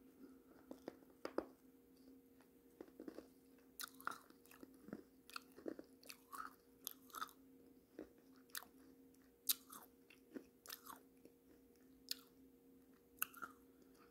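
Close-up mouth sounds of biting into and chewing a thick, wet black pot paste: irregular sharp wet clicks and smacks, several a second at times, over a faint steady hum.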